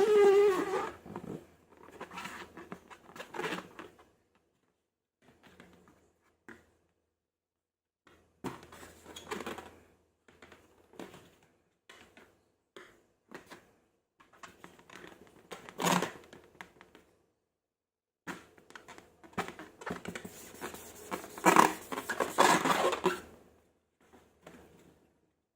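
Slime being handled and squished by hand, giving irregular runs of sticky clicks and crackles with short pauses between them. The loudest runs come about two-thirds of the way through and near the end. A pitched squeal dies away about a second in.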